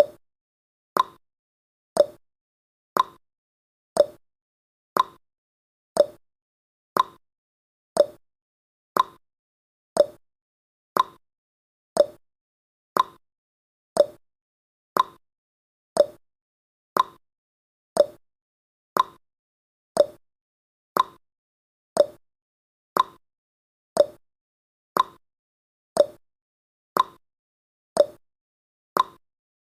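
Countdown timer's tick sound effect: one short, sharp tick every second, each fading quickly, with silence between.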